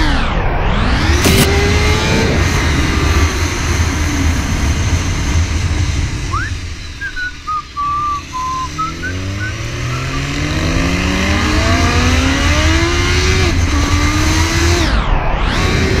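BMW S1000RR inline-four sportbike engine heard from on board over wind noise, revving hard. Around the middle it drops away as the throttle is rolled off, with a few short high chirps, then it pulls again, its pitch climbing steadily over the last several seconds.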